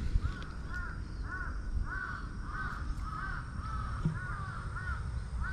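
A crow cawing over and over, short caws nearly two a second, with a low rumble underneath.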